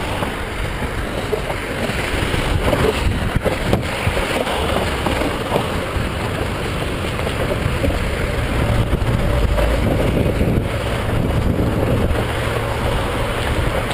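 Steady rush of wind on the microphone of a handlebar-mounted GoPro while cycling, with the low rumble of cars passing on the road alongside, a little heavier about two-thirds of the way through.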